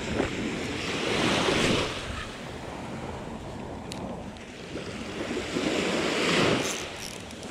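Small waves washing onto a beach, two swells of surf a few seconds apart, with wind rushing over the microphone.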